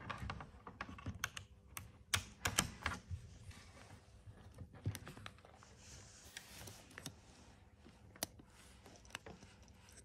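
Faint scattered clicks and taps from a hand handling a micro:bit expansion board and its thumb joystick on a plastic base, clustered in the first few seconds with single clicks later on.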